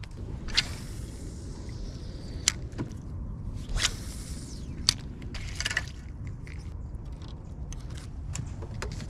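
Spinning reel being wound and a soft plastic lure brought in and handled, with several sharp clicks and knocks over a low steady rumble.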